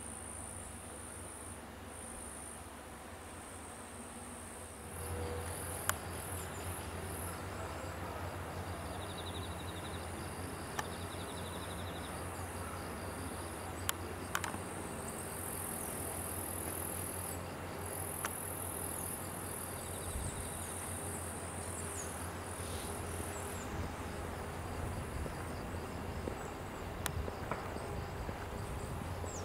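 Insects singing in high-pitched stretches of a few seconds each, over a steady outdoor background with a low hum that gets louder about five seconds in.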